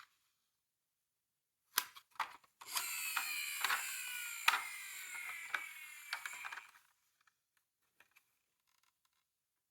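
A few clicks, then a toy car's small gear mechanism whirring as it runs, its whine slowly falling in pitch as it winds down over about four seconds.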